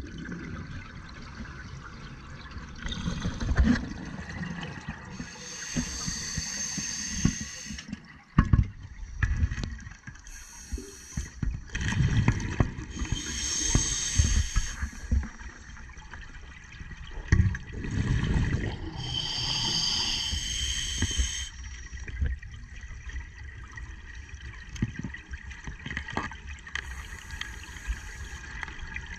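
Scuba regulator breathing heard underwater: a hissing inhalation about every six to seven seconds, with bubbling exhalations in between.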